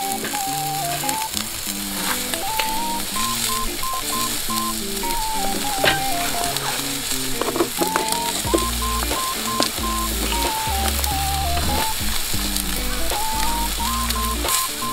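Yakitori skewers sizzling over a charcoal grill, under background music with a stepped melody and a bass line that comes in past the middle. A few light clicks midway.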